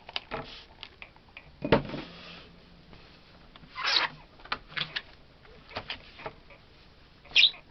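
Craft tools and stencil handled on a worktable while cleaning up after ink blending: scattered light clicks and taps, a louder knock about two seconds in, and short rubbing swishes around four seconds in and near the end.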